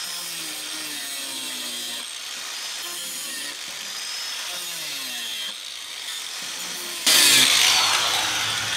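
Small electric angle grinder running and cutting into a plastic inner fender liner to clear a corner over a steering gear bolt. The motor's pitch wavers up and down under load, and the cutting gets much louder about seven seconds in.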